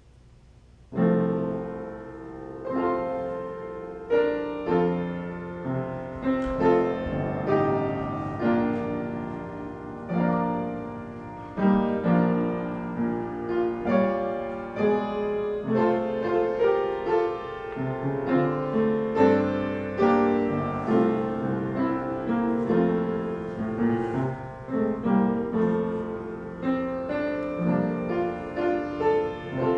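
Solo piano playing a slow, classical-style piece of chords that begins about a second in.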